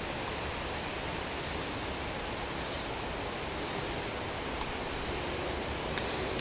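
Steady outdoor background hiss with an even, featureless level, broken only by a few faint ticks.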